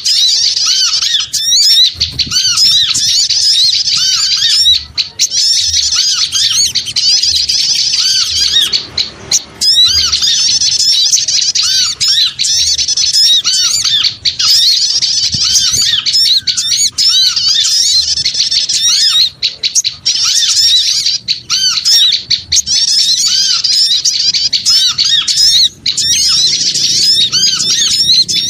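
Dense, noisy chatter of many small birds calling at once: a bird-lure recording of small birds. The calls are high-pitched and rapid, with a short lull about nine seconds in.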